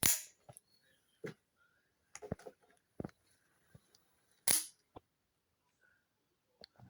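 Switchblade knives snapping open with sharp metallic clicks: two loud snaps, one at the start and one about four and a half seconds in, with smaller clicks of handling, locking and closing between them.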